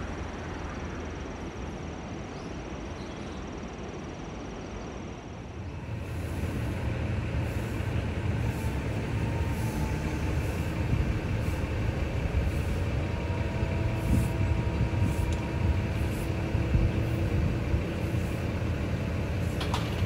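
A steady rushing noise, then from about six seconds in a heavy diesel engine running steadily with a low rumble, louder than what came before, with occasional faint clanks.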